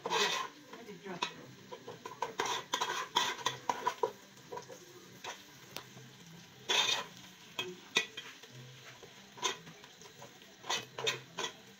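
Metal spoon stirring frying egusi (ground melon seed) in a metal cooking pot, scraping and clinking against the pot in irregular strokes, the loudest about seven seconds in.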